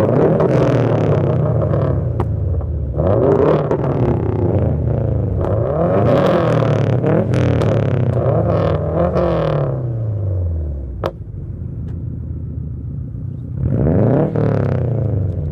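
Car engine exhausts with aftermarket systems (Invidia Q300, Invidia N1 and an ETS quiet exhaust with resonator) heard together, several free revs overlapping and out of step, rising and falling repeatedly. About ten seconds in the revs drop to idle, and another rev comes near the end.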